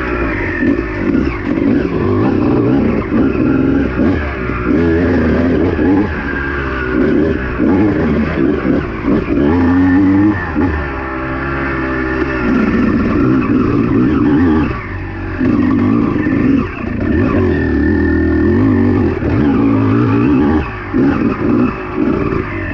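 Honda two-stroke dirt bike engine being ridden, its pitch rising and falling as the throttle is worked, with brief drops where the throttle is rolled off.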